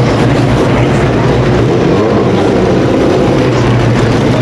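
Race car engines running at the track, a loud steady drone whose pitch sweeps slowly up and down.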